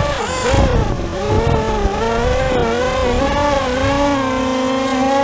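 Electric motors and propellers of a small radio-controlled VTOL plane whining in flight. The pitch wavers up and down with the throttle, then settles to a steady tone about three seconds in. Wind rumbles on the onboard microphone.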